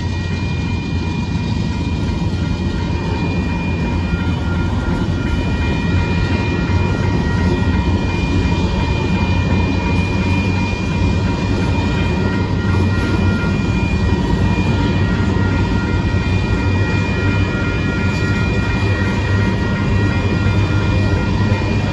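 Covered grain hopper cars of a Norfolk Southern freight train rolling past over a grade crossing: a loud, steady rumble of steel wheels on rail, with a few steady high ringing tones held over it.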